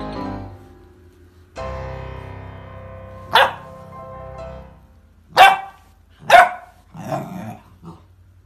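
Golden retriever puppy barking: three loud, sharp barks about a second or two apart, then two softer ones near the end. Light background music plays under the first half.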